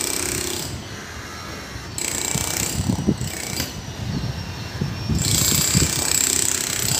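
Jackhammer breaking up the concrete of a pile head, running in bursts with a rapid rattling hammering. It is loud for the first couple of seconds, eases off with a few heavier knocks in the middle, then runs hard again from about five seconds in.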